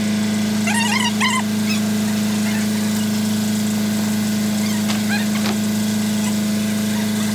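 A motor or engine running at a constant speed, giving a loud, steady hum that cuts off abruptly at the end. A few short chirps come about a second in and more faintly around five seconds.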